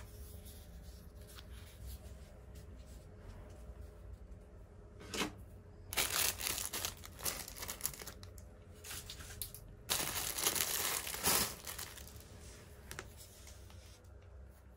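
Plastic packaging being torn open and crinkled by hand. There are two loud stretches of tearing and rustling, about six and ten seconds in, with lighter handling between them.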